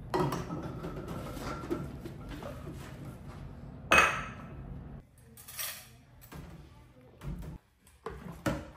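Dishes and kitchenware clinking and clattering as they are handled, with one loud ringing clank about four seconds in, then a few lighter knocks.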